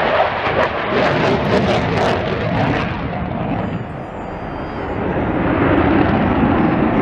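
Loud jet noise from a Eurofighter Typhoon's two Eurojet EJ200 turbofan engines as it flies its display overhead. It crackles through the first few seconds, eases a little about four seconds in, then swells again.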